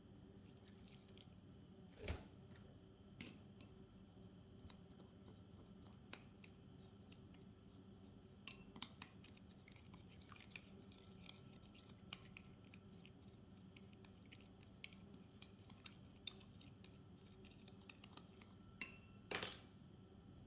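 Quiet kitchen handling sounds: scattered light clicks and clinks of utensils and dishes over a steady low hum, with a louder knock about two seconds in and another near the end.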